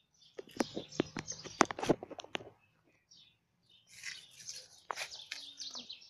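Dry leaves crackling and rustling as cats scuffle over a dead bird and one snatches it: a dense run of sharp crackles for about two seconds, then lighter, higher rustling near the end.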